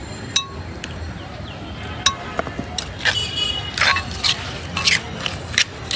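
A metal spoon clinking against a stone mortar, a few sharp taps spread out, then a run of quick scraping and rustling strokes in the second half as sliced raw mango is tossed with spice paste. A steady background hum runs underneath.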